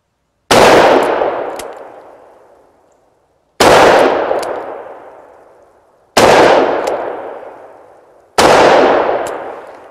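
Four shots from a Taurus Judge revolver firing single .410 bore slugs, spaced about two to three seconds apart. Each shot is loud and dies away over about two seconds.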